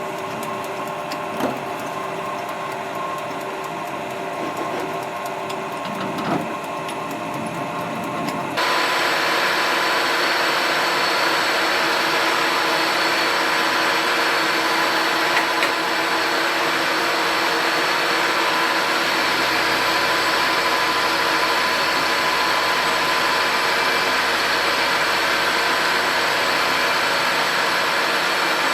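A workshop electric machine running steadily with a whine of fixed tones. It steps up louder about eight and a half seconds in, then holds steady.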